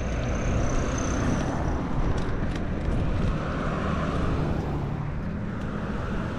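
Wind buffeting an unshielded camera microphone on a moving bike, a low rumble over the steady noise of cars passing on the street, with one vehicle swelling and fading about three to four seconds in. A faint high whine runs through the first two seconds, and a few light ticks come around two seconds in.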